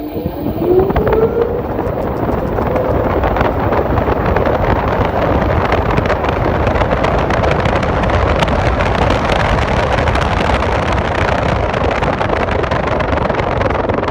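Washing machine running with an iPhone inside: the motor whine rises in pitch over the first second or so as the drum gets going, then a loud, steady rushing noise with many small clicks and knocks as the drum turns.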